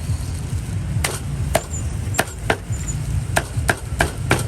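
Cleaver chopping meat on a cutting board: about eight sharp, separate chops at an uneven pace.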